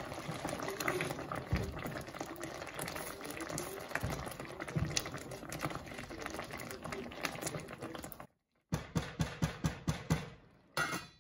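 Silicone spatula stirring a simmering diced-tomato curry sauce in a pan: steady wet stirring and bubbling. Near the end the stirring gives way to a quick run of light taps.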